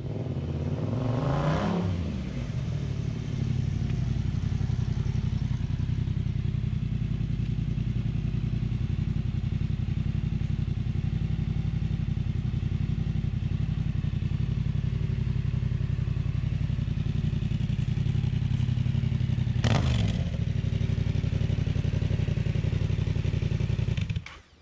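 Yamaha MT-07 parallel-twin engine idling loudly through a cheap aftermarket slip-on exhaust. It revs up and back down once near the start and blips sharply once about 20 seconds in. The engine is shut off just before the end.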